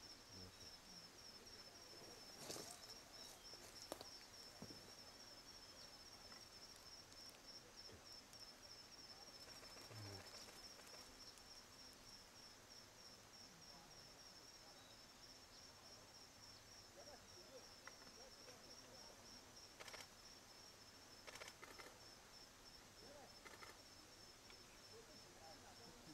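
Faint forest ambience carried by an insect's steady, evenly pulsing high trill, with a few faint clicks.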